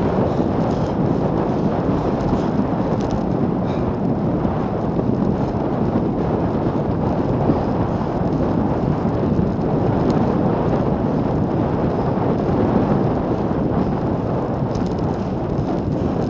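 Wind rushing over the microphone of a handlebar-mounted camera on a road bicycle moving at about 35 km/h, a steady deep rumbling noise with a few faint ticks.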